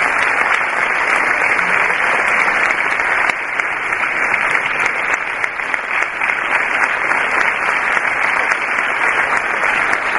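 A large auditorium audience applauding: dense, steady clapping at the close of a talk.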